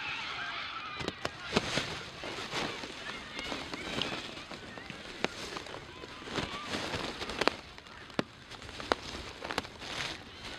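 Outdoor football-pitch ambience: women players calling out and distant voices across the field, with scattered sharp clicks and knocks.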